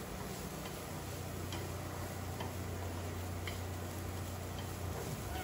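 Chopsticks stirring rice and diced vegetables in a non-stick pan, tapping the pan with light ticks about once a second, over a steady low hum that fades near the end.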